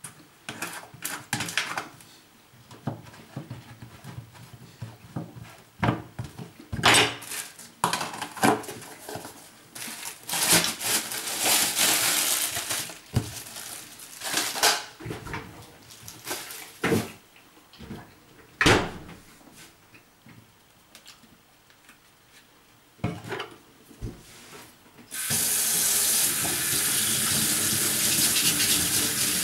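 Scattered knocks and clattering of things being handled, then about 25 seconds in a water tap is turned on and runs steadily.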